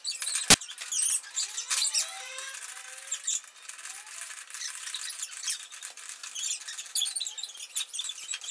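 Steel lead screw of a bench vise being pushed into the vise body and turned through its rebuilt nut: a sharp metal clack about half a second in, then light metal-on-metal clicking and rattling with a few short squeaks.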